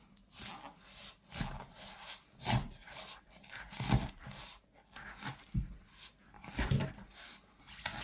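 Knife sawing and scraping into the inside heel of an Onemix Light Armor running shoe, cutting through fabric and foam in rough, uneven strokes about once a second, each a dull thump with a scratchy rasp.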